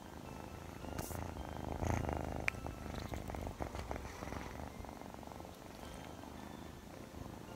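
Scottish Fold kitten purring close to the microphone, strongest from about one to five seconds in, then fading. There are two sharp clicks, about one and two and a half seconds in.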